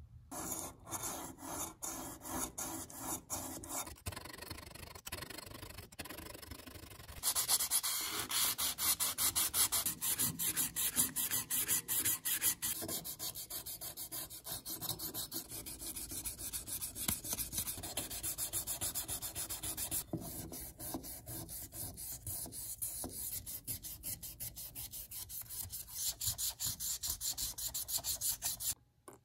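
Sandpaper rubbing by hand on the aluminium gear and housing parts of a Stanley egg beater drill, in quick back-and-forth strokes, working out pitting through the grits from 220 to 1000. It comes in several stretches that change abruptly, louder from about seven seconds in.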